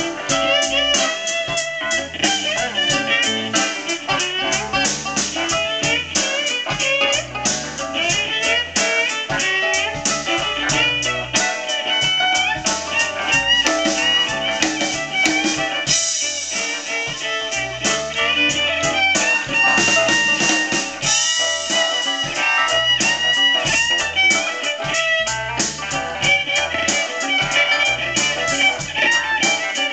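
Live blues band playing an instrumental break, guitar to the fore over bass and drums with a steady beat, with bending, sliding melodic notes.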